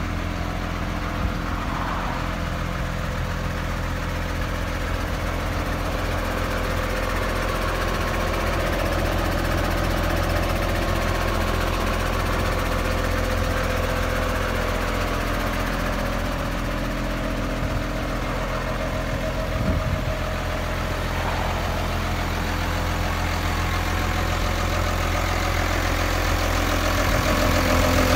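Diesel engine of a New Holland T7-series tractor idling steadily, a little louder near the end.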